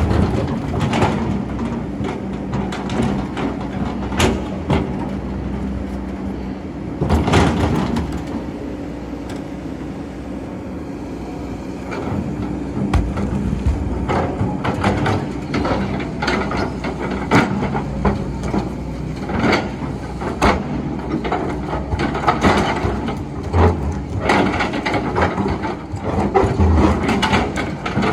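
Excavator's diesel engine running steadily while the bucket digs sand, with frequent knocks, clanks and scrapes from the bucket and arm. The knocking eases for a few seconds in the middle, then picks up again.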